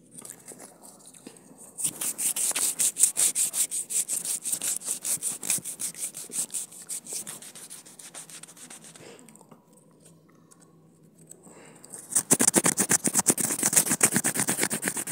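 Rapid back-and-forth rubbing of a hand close to the phone's microphone, at about eight strokes a second, in two bouts: one starting about two seconds in and fading out, and a louder one near the end.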